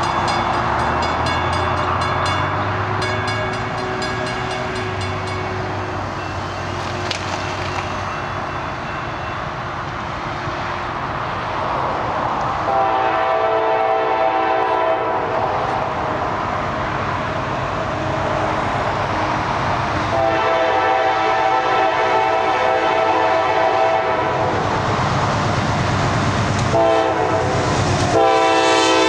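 Diesel freight locomotive's air horn sounding the grade-crossing pattern: two long blasts, a short one, then another long one starting near the end. Under it runs the rumble of the approaching loaded coal train and its locomotives, growing louder.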